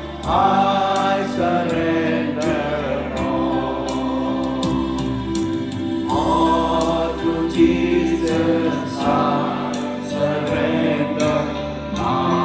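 A choir singing a hymn to instrumental accompaniment with a steady beat.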